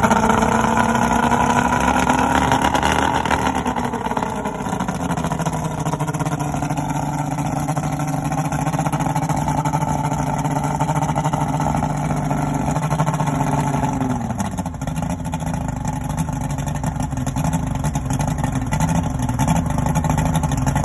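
Outboard motor with its cowling off, running on a flushing hose. It holds a slightly rising fast idle for the first few seconds, then drops to a steady lower idle about four seconds in, and eases down a little further about fifteen seconds in.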